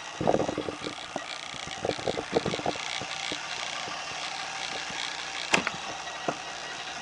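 Clattering rattles near the start and again about two seconds in, then a sharp latch click about five and a half seconds in and a lighter click a little later as the pickup's rear door handle is pulled, over a steady background hum.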